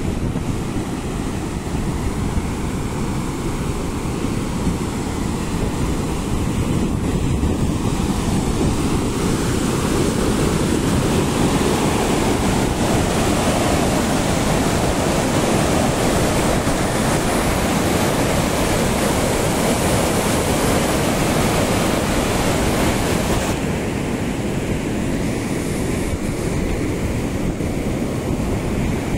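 River water rushing through rapids along an earthen embankment, with wind buffeting the microphone. The rushing grows louder and brighter midway and drops back suddenly near the end.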